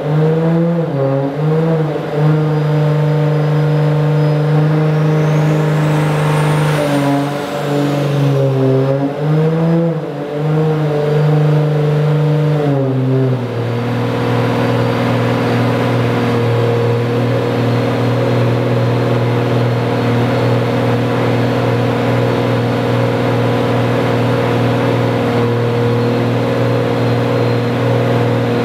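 Turbocharged 1.5JZ inline-six in a Nissan S13 240SX running on the dyno: its speed wavers up and down for about the first thirteen seconds, then settles to a steady, lower idle. A faint high whine rises and falls about six seconds in.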